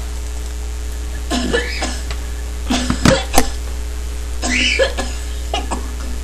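A person coughing in four short bouts about a second or so apart, harsh and chesty, over a steady low hum.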